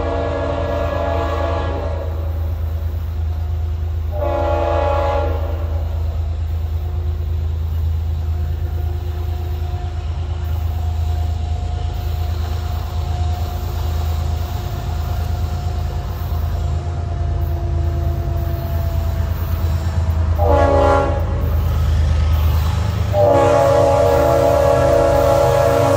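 Leslie RS-5T five-chime air horn on a CSX GE ES44AH locomotive, blowing the grade-crossing pattern of long, long, short, long. The end of a long blast comes first, a second blast about 4 s in, a short blast about 20 s in, and a final long blast from about 23 s in, held on. Under it runs the low, steady rumble of the approaching train.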